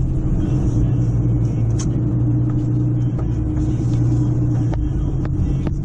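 A vehicle engine running steadily with a low rumble, with a few sharp clicks and knocks near the end.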